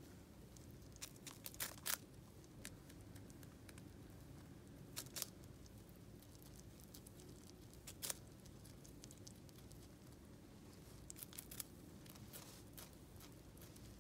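Richardson's ground squirrel chewing broccoli: faint, crisp crunching bites that come in short scattered clusters.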